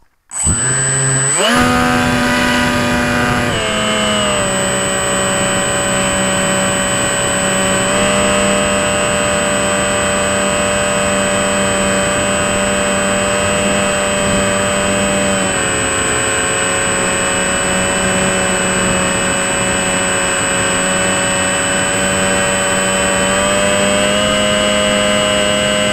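RC plane's motor and propeller, heard from a camera mounted on the plane. It spins up in the first second or two, then runs at a steady high pitch with a thin high whine above it. The pitch drops slightly about four seconds in and again around sixteen seconds, and rises a little near the end.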